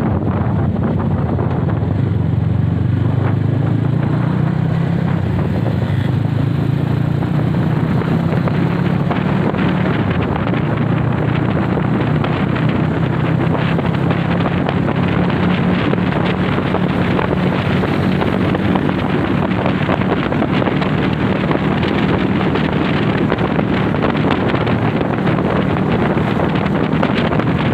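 A Honda CB motorcycle running at a steady pace on the move, with wind buffeting the microphone.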